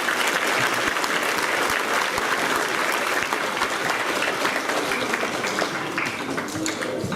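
Audience clapping steadily, easing off slightly near the end.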